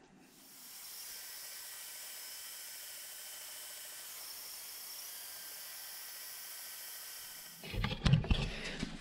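Metal-cutting bandsaw notching a steel piece: a steady hiss with a faint steady whine. Near the end, steel pieces knock and clatter loudly on the workbench.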